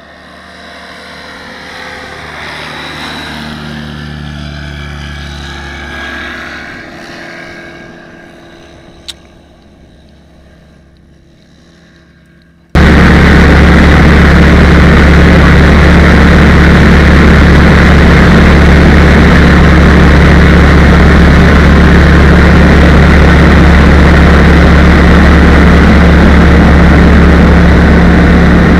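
A light propeller aircraft's engine swells as it passes along the runway, then fades as its pitch slides down. About 13 s in it switches abruptly to the loud, steady drone of the ultralight's engine and propeller heard inside the cockpit in flight.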